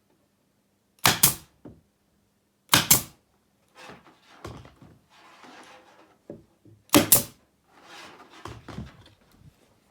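Nails being driven into new wooden roof boards: three loud, sharp double cracks, at about one, three and seven seconds in, with softer scraping and knocking of the boards between them.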